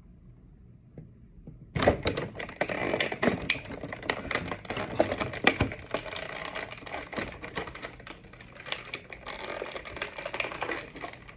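Clear plastic toy packaging crinkling and crackling as it is handled and pulled apart. A dense run of sharp crackles starts about two seconds in.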